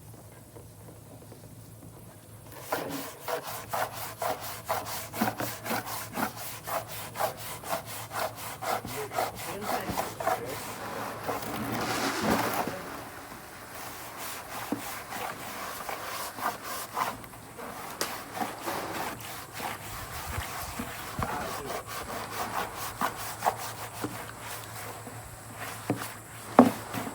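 Rhythmic back-and-forth rubbing or scraping strokes, several a second, starting about two and a half seconds in and continuing steadily.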